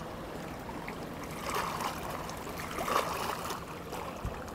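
Water sloshing and splashing, swelling for a couple of seconds mid-way, as a speeding boat's wake washes in at the boat ramp; a small knock near the end.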